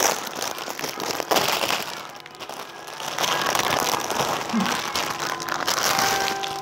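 Clear plastic clothing bag crinkling and rustling as it is pulled open and lifted off a garment, in uneven handling bursts with a short lull in the middle.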